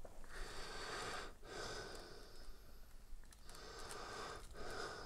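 Faint nasal breathing, a few slow breaths each lasting about a second.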